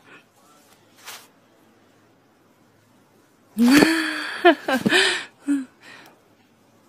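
A cartoon girl's excited giggling, in a few short bursts about halfway in, after a mostly quiet stretch.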